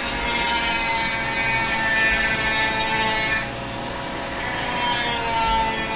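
Flex-shaft rotary power carver with a carbide bur grinding wood: a steady whine over a noisy grinding rush, dipping briefly a little past halfway through. A vacuum hose draws the dust away at the bur tip.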